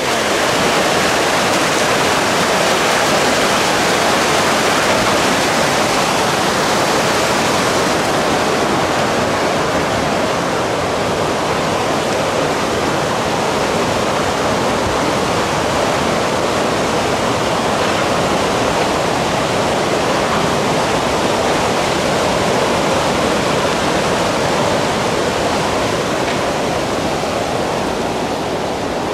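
Water pouring over a stepped concrete weir and churning below it: a loud, steady rush of white water, easing slightly near the end.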